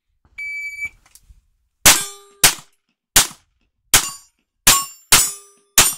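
Electronic shot timer beeps once for about half a second. A pistol then fires seven shots over about four seconds, and some shots are followed by the short ring of hit steel plates.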